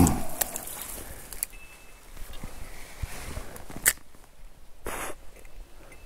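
Faint rustling and scattered small clicks of close handling, with a couple of sharper ticks and a short swish about five seconds in.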